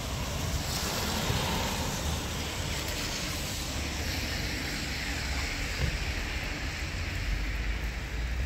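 Tyres hissing on a rain-soaked asphalt street as a vehicle passes. The hiss swells about a second in and then slides lower in pitch as it goes by, over a steady low rumble.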